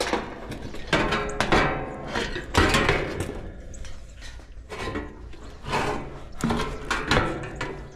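Sheet-metal top panel and wire fan guard of an air-conditioner condenser unit clanking and rattling as they are lifted off the cabinet: a run of knocks with a short metallic ring after each, the loudest about two and a half seconds in.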